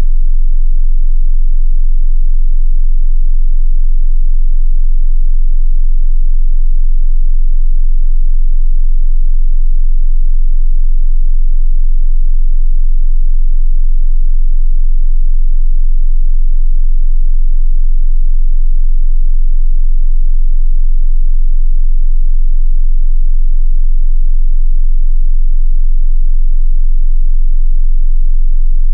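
A steady 22 Hz sine-wave test tone: a continuous, very loud, very deep sub-bass hum with no change in pitch or level.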